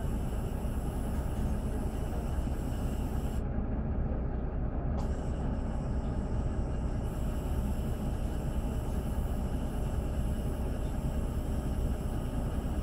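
Mercedes-Benz OM926LA six-cylinder diesel engine of a Conecto LF city bus idling while the bus stands still, heard from inside the passenger cabin as a steady low rumble.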